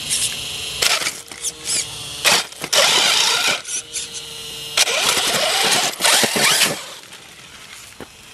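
Electric 1/8-scale RC monster truck driving over rocks and cobblestones: short bursts of motor whine rising and falling in pitch, with tyres scrabbling and the chassis knocking on the stone. It is loudest in two stretches in the first and middle parts, then quieter near the end.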